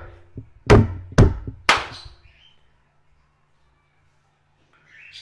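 Percussion sequence of hand strikes on a tabletop and a plastic cup: three sharp hits about half a second apart in the first two seconds, then quiet.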